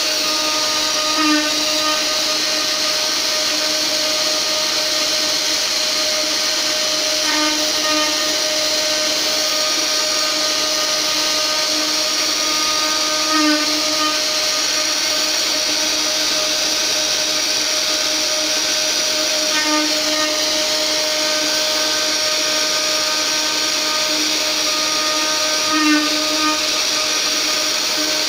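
Mini CNC router's 500 W spindle running steadily with a fixed whine while its 4 mm bit carves a wooden relief panel. The cutting sound swells briefly about every six seconds, as the bit passes back over the piece.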